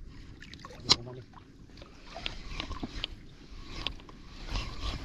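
Spinning reel being cranked on a jigging rod: scattered irregular clicks and knocks, one sharp click about a second in, over water lapping against a small boat.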